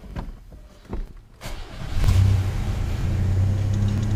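Chevrolet S-10 pickup's engine starting, heard from inside the cab: after a quiet moment with a few faint knocks it cranks briefly, catches about two seconds in, and settles into a steady idle.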